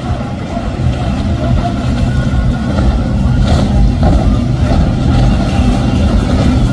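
Several outboard engines on a large center-console boat running at speed as it passes close by: a low drone over the rush of spray and wake, growing louder over the first few seconds.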